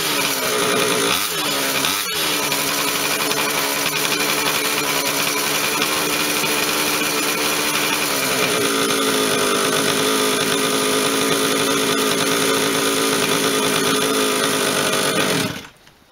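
Mini moto pocket bike's small two-stroke engine, a 49cc stroked to 52cc, running at a fast idle. It gets two short throttle blips about one and two seconds in and settles slightly lower in pitch about eight seconds in. It cuts off suddenly just before the end as the engine is shut down.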